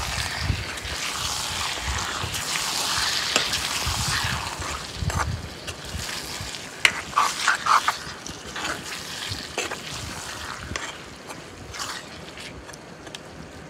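Chicken pieces sizzling in masala in a steel kadai while a steel ladle stirs them, with a run of sharp scrapes and clicks of the ladle against the pan about halfway through. The sizzle is strongest at first and dies down toward the end.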